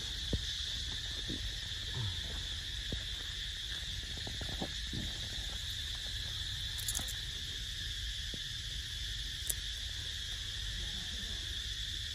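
A steady, high-pitched drone of an insect chorus, with a few scattered soft clicks.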